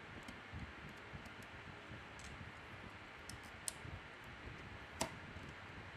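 Faint, scattered clicks and taps of steel tweezers working a phone's rear-camera flex connector and camera module on the circuit board, the sharpest click about five seconds in.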